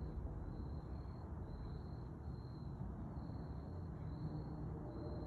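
Crickets chirping in an even rhythm, about three high chirps every two seconds, over a steady low rumble.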